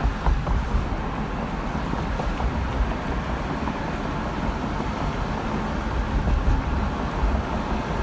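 Road and engine noise heard from inside a moving car: a steady low rumble with a hiss above it.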